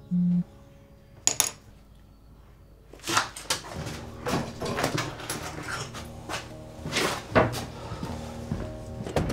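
Household handling noises: knocks, clatters and rustling start about three seconds in and go on to the end, over soft background music. There is a short, loud pitched tone right at the start and a quick double click about a second later.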